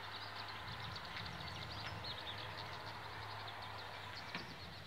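Small birds chirping, many quick high chirps overlapping, over a steady low hum.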